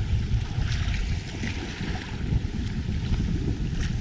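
Wind buffeting the microphone over a choppy sea, with waves splashing against the hull and bamboo outriggers of a small outrigger boat.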